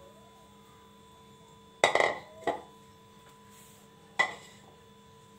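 Metal kitchenware clanking: a utensil knocked against a metal pan or bowl three times, twice close together about two seconds in and once more about two seconds later, each with a brief ring.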